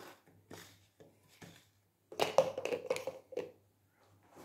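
Scattered taps and rustles of pill packaging being handled on a stone countertop, busiest about two to three and a half seconds in.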